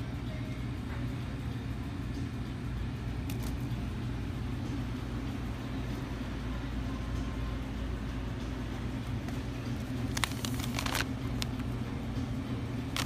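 Steady low hum of grocery store background noise, with a few brief rustling clicks about ten seconds in and again near the end.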